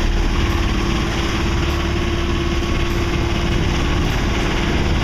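Sailboat's auxiliary engine running steadily, a constant hum and low rumble, under an even rushing noise of wind and water.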